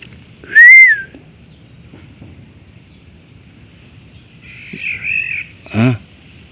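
An animal call, most likely a bird: a single loud whistled note rising and then falling, about half a second in. A quieter, rougher call follows around five seconds in, and a short voice-like sound comes just before the end. This is the strange sound in the bamboo clump that is unnerving the listener.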